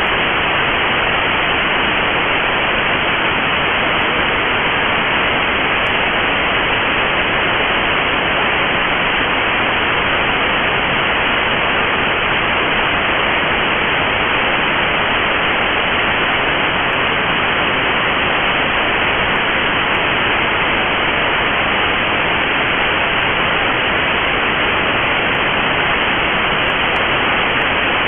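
Steady hiss of static from a weather radio receiver with no signal: the weather radio station has gone off the air.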